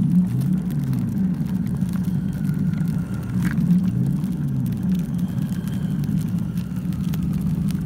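Ride-on toy truck driving over asphalt: a steady low rumble from its wheels and drive motors, with a hum that drifts up and down in pitch.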